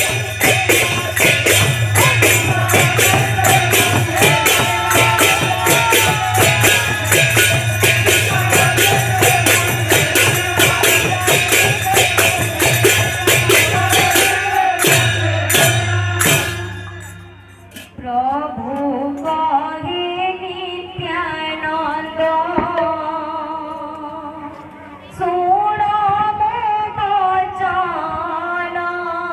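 Kirtan percussion: khol barrel drums and small brass hand cymbals played fast and loud, stopping about 17 seconds in. After that a solo voice sings a melody with little accompaniment.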